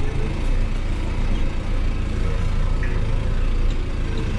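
New Holland T5060 tractor's diesel engine running steadily at an even speed.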